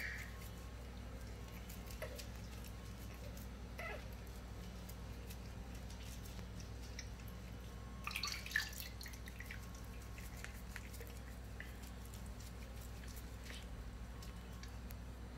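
Soft bath-water sounds as a newborn monkey is washed in a small tub: light drips and small splashes, with a brief splash about eight seconds in. A faint short squeak from the infant at the very start.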